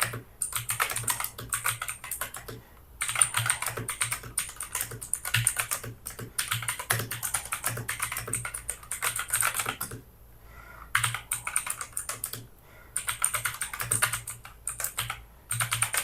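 Ant Esports MK3400 Pro V3 mechanical keyboard with Outemu Blue clicky switches being typed on in fast runs of clicky keystrokes, pausing briefly about three seconds in and again about ten seconds in.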